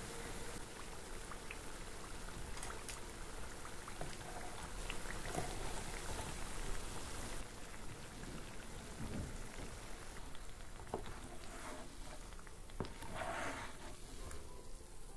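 Hot oil sizzling and bubbling around flour-coated potato rings deep-frying in a pan, with scattered light clicks of wooden chopsticks against the pan and rings. The sizzle thins out about halfway through as the rings are lifted out of the oil.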